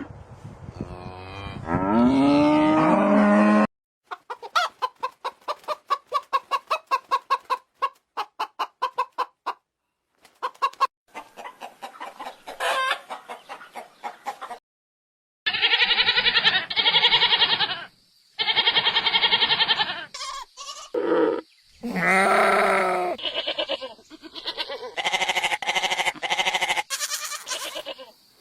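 A sequence of farm-animal calls: a long mooing call at the start, then rapid clucking from chickens, then, after a brief gap, loud repeated calls from fowl such as a crowing rooster.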